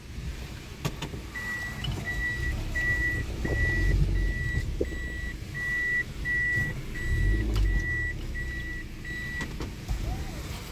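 A car's electronic warning beeper inside the cabin, sounding short high beeps of one pitch about twice a second and stopping about a second before the end, over the low rumble of the car.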